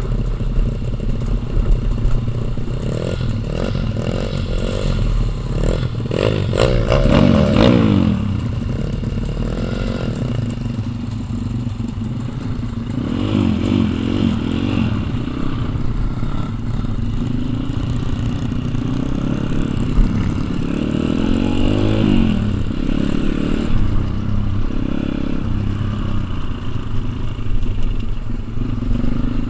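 Small pit bike engines running and being revved, the pitch rising and falling several times as the bikes pull away and accelerate; the loudest run of revving comes about seven seconds in.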